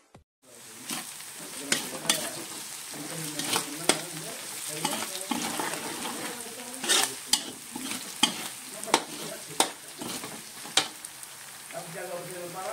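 Ground meat and chopped garlic sizzling in hot oil in a metal wok, stirred with a metal spatula that scrapes and clinks sharply against the pan about once a second.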